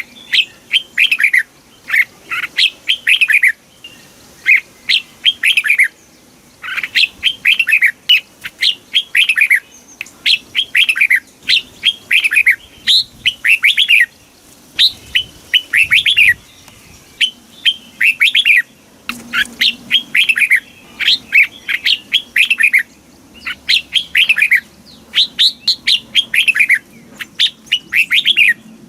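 Red-whiskered bulbul singing: short, lively phrases of quick whistled notes, repeated over and over with brief pauses between them.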